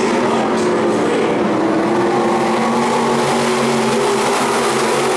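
A field of dirt-track stock cars racing around the oval, their engines running together in a steady, loud drone of several overlapping engine tones.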